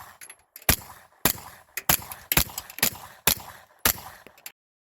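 A steady string of seven gunshots, roughly one every half second, each with a short ringing tail, cutting off suddenly near the end.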